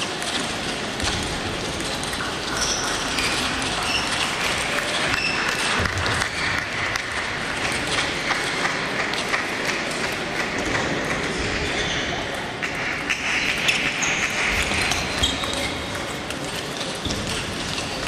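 Table tennis balls clicking irregularly and overlapping as they are hit and bounce on tables, bats and floor at many tables at once in a large hall, over a background murmur of voices.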